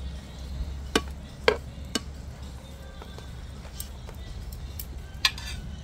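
Spatula knocking and scraping against a non-stick frying pan while stirring a vegetable fry-up: a few sharp clinks, three close together about a second in and another near the end, over a steady low rumble.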